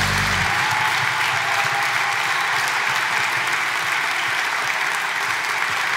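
Audience applauding steadily as the hymn's final chord dies away in the first half second.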